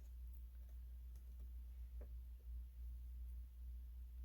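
A few faint clicks as a light switch cover plate is fitted and fastened onto the wall, over a low steady hum.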